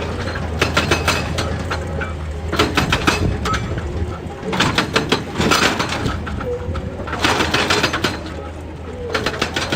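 Excavator engine running steadily with a low hum, under repeated bursts of clattering and knocking about every two seconds, with a couple of short squeaks.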